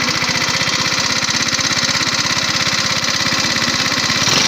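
A 125cc scooter's single-cylinder four-stroke engine idling steadily just after an electric-button start, with an even firing beat and a slight rise near the end. The scooter's hard starting has been cured: its carburetor no longer leaks or floods, and its valve has been adjusted.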